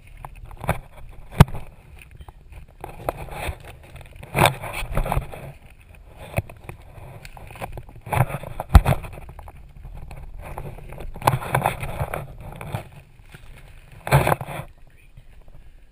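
Someone crawling over plastic vapor-barrier sheeting on a gravel floor: irregular rustling and crinkling of the plastic, with a few sharp knocks and bumps.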